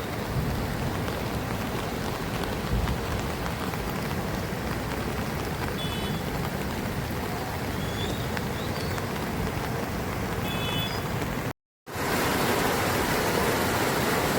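Torrential rain pouring steadily as an even hiss. It cuts out briefly near the end and comes back slightly louder.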